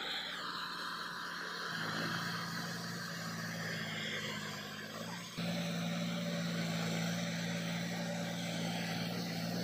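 John Deere 5050D tractor's three-cylinder diesel engine running steadily under load while driving a rotavator through wet mud. The sound gets suddenly louder about five seconds in.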